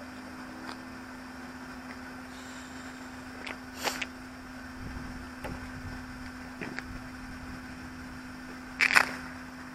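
A steady low electrical hum with a few light clicks and a sharper knock about nine seconds in, picked up by the camera mounted on the stationary RC car.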